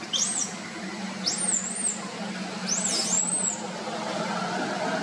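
Three high, thin animal calls, each sweeping up and arching over, about a second apart, over a steady low hum and background hiss.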